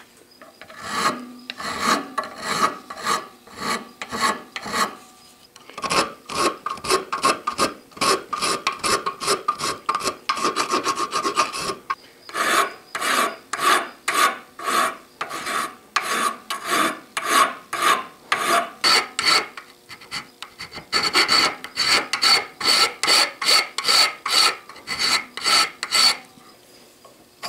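Hand file rasping back and forth across a cast aluminum piece, about two strokes a second with a few short pauses, knocking off the casting flashing.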